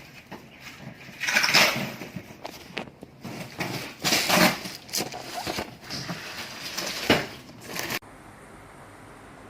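Irregular rustling and knocking handling noises with a few sharp clicks, cutting off suddenly about eight seconds in to a steady faint hiss.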